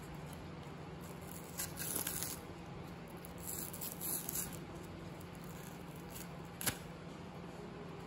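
Paper tear strip being peeled around a cardboard ice-cream tube: two short bursts of tearing and rustling paper, about two and four seconds in, then a single sharp click near the end, over a faint steady hum.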